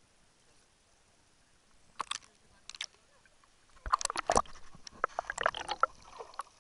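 Seawater splashing and sloshing against a camera as it is dunked under the surface and brought back up. Two short splashes come about two seconds in, then a busy run of splashing and gurgling from about four seconds on.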